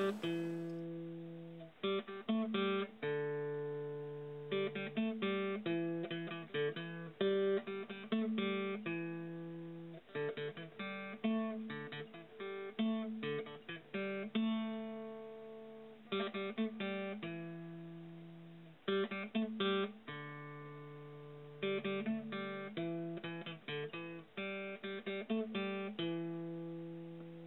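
Solo acoustic guitar music, chords and single notes picked and strummed, each note ringing and fading.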